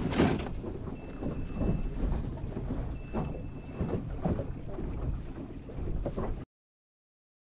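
A small aluminium boat running under outboard power through wind-whipped chop: wind buffeting the microphone over the motor's drone, with the hull knocking on the waves every second or so. The sound cuts out abruptly about six and a half seconds in.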